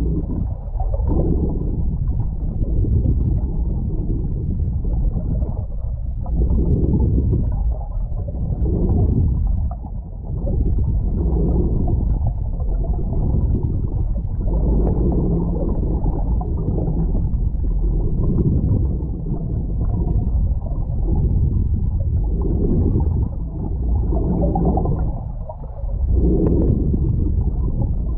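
Muffled rush and gurgle of water flowing past a GoPro's waterproof housing on a submersible towed underwater, swelling and easing every second or two.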